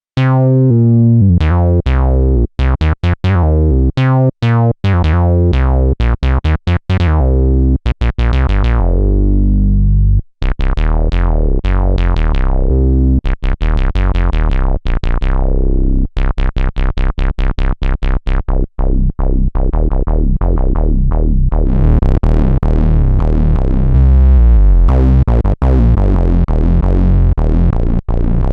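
Korg monologue analog monophonic synthesizer playing a factory preset: a bass-heavy sequenced line of short notes, each with a filter sweep that closes after the attack, and brighter, buzzier tones in the last third.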